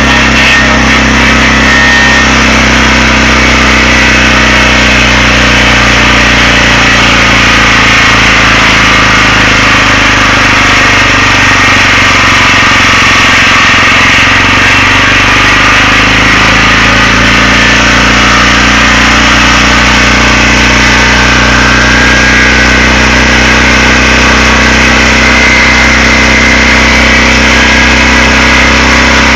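A sawmill's engine running loud and steady, with a dense hiss above its low hum.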